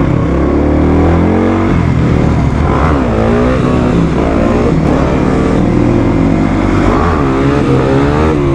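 Supermoto motorcycle engine revving under acceleration while carrying two riders, its pitch climbing and dropping back several times.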